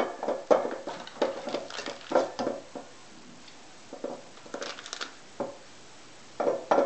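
Flour and shortening being worked together by hand in a mixing bowl for pie crust: irregular soft crunching and squeezing sounds, busy at first, then sparser, with another cluster about five seconds in.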